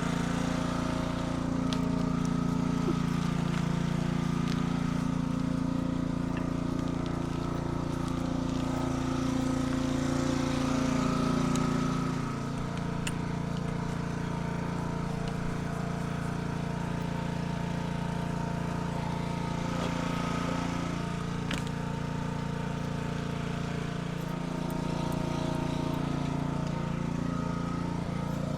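A small engine running steadily at a constant speed, with a few faint clicks over it.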